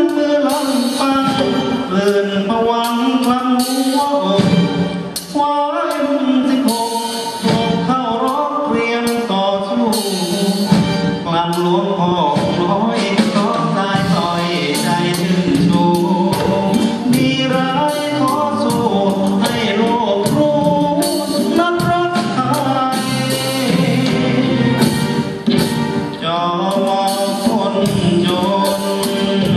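Male singer performing a Thai song into a handheld microphone, backed by a live symphony orchestra with strings.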